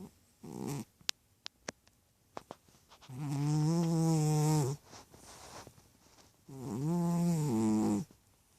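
Chubby cat snoring: a short snore about half a second in, then two long, pitched snores of about a second and a half each, with a quiet gap between them. A few faint clicks come in the first two seconds.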